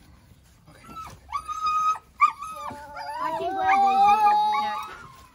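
German shorthaired pointers whining and howling: a short high whine about a second in, then several long overlapping howls through the second half.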